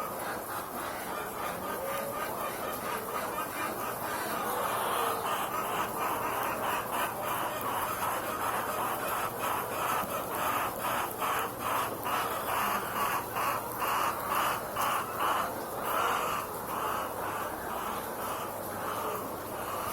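A large flock of chickens inside a poultry house, clucking together in a dense, continuous chorus, with rapid overlapping calls strongest from about four seconds in until near the end.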